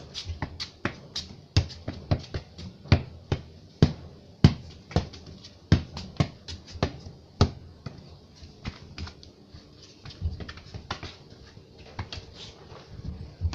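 A football being tapped, kicked and bounced on a concrete floor, with the player's footsteps: an irregular run of sharp knocks, a few a second and of varying loudness, echoing in a narrow passage.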